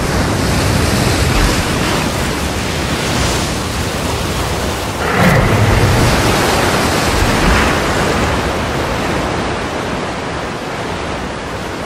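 Flash floodwater rushing down a forest creek channel: a loud, steady torrent that swells about five seconds in and again a couple of seconds later.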